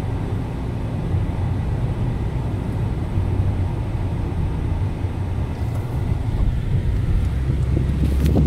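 A car driving at steady speed, heard from inside the cabin: a low, even engine and road rumble, with a couple of light clicks near the end.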